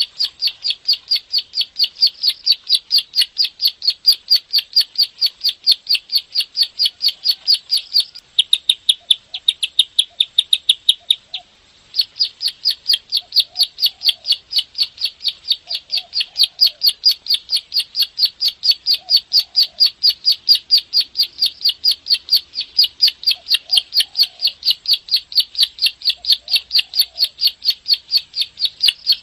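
Ciblek sawah (prenjak sawah), a prinia, singing a long, fast series of sharp repeated notes, about four to five a second. About eight seconds in it switches to a softer, quicker run, stops briefly, then takes up the first pattern again.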